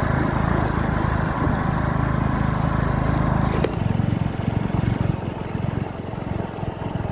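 Motorcycle running along a rough dirt road, engine and road noise blended into a steady rumble. A single sharp click about three and a half seconds in.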